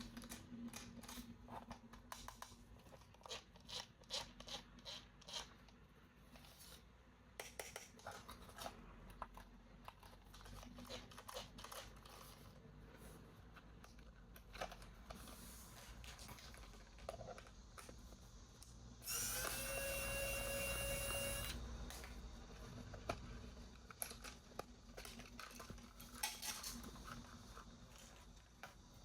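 Toy packaging being handled and opened: scattered small clicks, taps and crinkles. About two-thirds of the way in comes a louder, buzzing screech at a steady pitch that lasts about two seconds.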